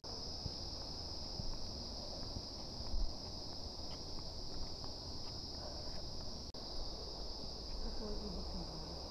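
Steady high-pitched chorus of insects, an unbroken shrill buzz, with a soft low thump about three seconds in.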